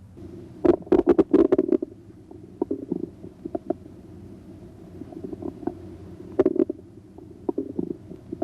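Bowel sounds heard through a stethoscope's diaphragm on the abdomen's right lower quadrant: irregular gurgles and clicks over a steady low gurgling, with a dense run of gurgles about a second in, scattered single clicks after it, and another cluster near six and a half seconds.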